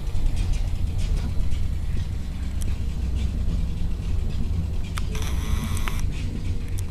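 Low steady rumble, then about five seconds in a sudden hissing blast of compressed air lasting about a second. The blast is a barrel air cannon firing, its air dumped through a 1-inch sprinkler valve triggered by a foot switch.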